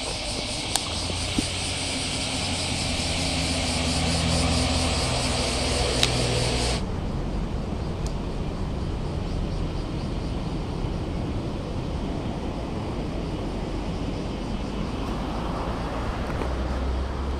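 Engine hum of passing motor traffic with a steady high hiss over it, swelling for several seconds before breaking off abruptly, then lower outdoor background noise with another engine swelling near the end. A few sharp clicks come in the first seven seconds.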